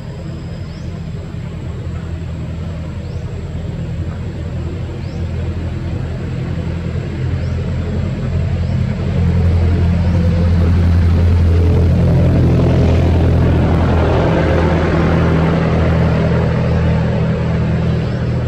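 A motor's steady low hum, like a vehicle engine running. It grows louder about halfway through and eases slightly near the end.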